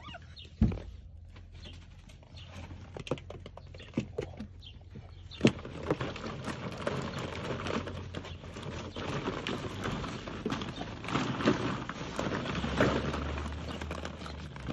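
Plastic ball-pit balls clicking and knocking against each other as two puppies wrestle among them: scattered knocks at first, then a dense clatter from about five seconds in.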